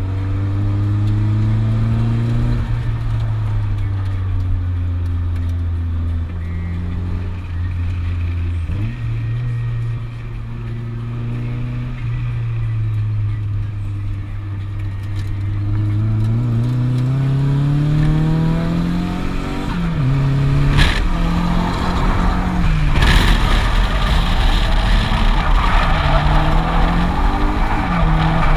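Turbocharged KA four-cylinder engine of a Nissan 240SX heard from inside the cabin, first running at a steady pitch, then revving higher about halfway through and rising and falling repeatedly in the last third. A loud rushing noise joins in the last third.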